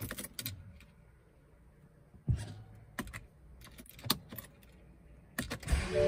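Scattered light clicks and rattles of handling inside a car cabin. Near the end a rising rush of sound sets in as the ignition comes on and the BMW X5 4.8i's V8 begins to start.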